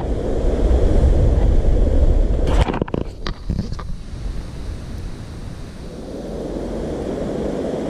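Wind buffeting the microphone: a heavy low rumble for the first two and a half seconds, then a steadier rush of wind, with a few brief knocks about three seconds in.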